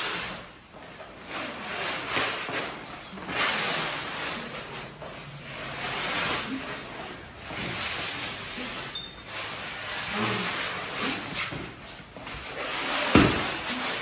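Plastic stretch wrap being pulled off a hand roll and wound around a mattress, hissing and crackling in repeated swells as the roll is carried round. A single thump near the end.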